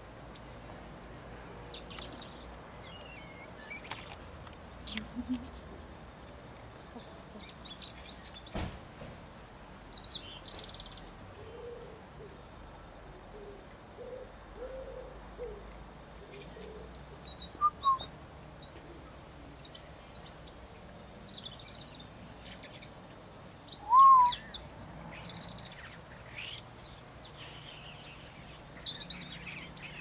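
European robin singing: high, thin warbling phrases with pauses between them. Two short, lower notes break in, the louder one about three-quarters of the way through.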